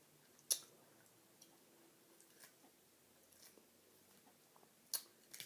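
Faint chewing of a mouthful of salad, with a sharp click about half a second in and two more near the end.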